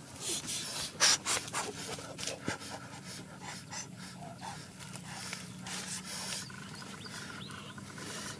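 Sticks and a metal wok knocking and clattering as they are set over a crackling wood fire, the loudest knock about a second in; later, breathy puffs of air as the fire is blown on.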